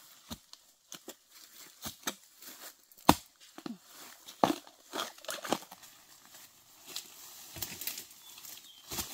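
Digging tool striking and scraping into forest soil around a bamboo shoot: irregular knocks, the loudest about three seconds in, with rustling of leaves and undergrowth between the strikes.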